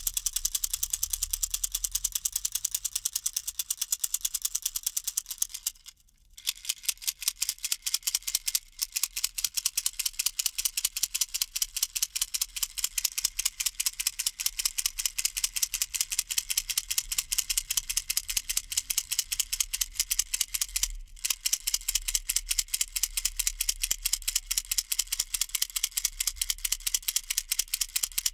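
Baby rattle shaken fast and continuously, a steady run of dry clicks, with short pauses about six seconds in and again about twenty-one seconds in.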